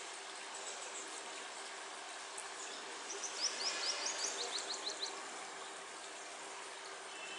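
A bird's rapid run of short, high, downward-slurred notes, lasting about two seconds from roughly three seconds in, over a steady background hiss and faint hum.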